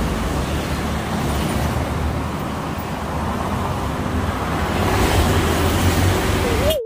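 Street traffic passing: cars, motorcycles and a box truck with a steady low engine rumble and tyre noise, swelling louder a few seconds in. Near the end the traffic sound cuts off suddenly and a wobbling cartoon boing sound effect begins.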